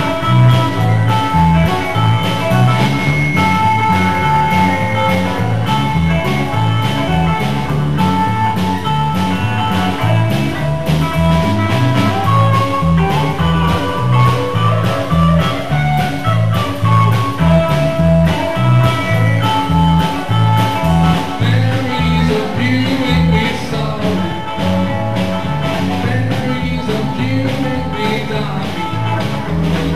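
Live rock and roll band playing: hollow-body electric guitar picking lead lines over electric bass and a steady drum beat, with a man's voice singing in from about two-thirds of the way through.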